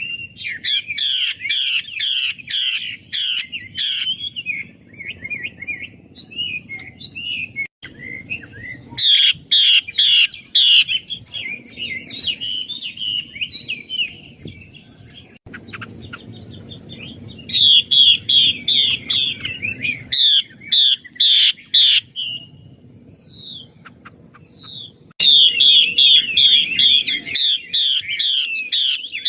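Chinese hwamei (Garrulax canorus) singing, said to be a female: loud phrases of rapid, repeated sharp notes, four times, with softer twittering between them.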